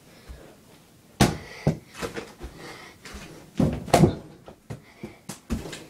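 Several sharp thumps and knocks against a wooden door fitted with an over-the-door mini basketball hoop, from a dunk attempt at the hoop. The loudest knocks come in a cluster about four seconds in.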